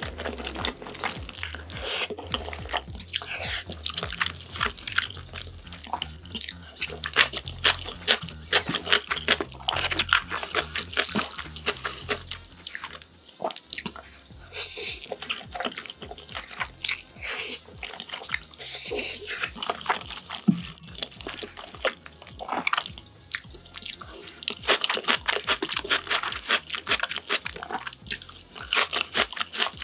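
Close-up eating sounds of jajangmyeon: noodles in thick black bean sauce slurped and chewed, a dense run of quick wet smacks and sucking slurps.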